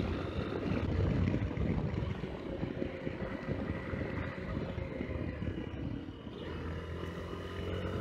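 Yamaha XTZ Ténéré 250's single-cylinder engine running steadily as the motorcycle rides along at road speed, over a low, uneven wind rumble on the microphone. The sound dips briefly about six seconds in, then settles back to a steady engine note.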